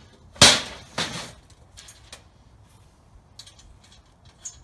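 Steel base plate being flipped over and set down: a loud clank about half a second in, a second clank about half a second later, then a few light knocks.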